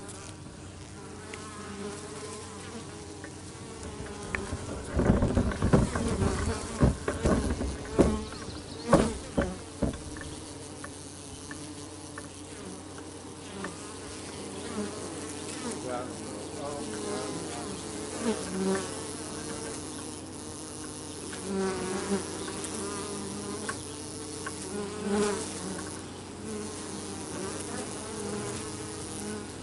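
Feral honey bees flying close around the microphone at the entrance of their nest in a pine tree cavity, their hums rising and falling as single bees pass. A run of loud knocks about five to ten seconds in.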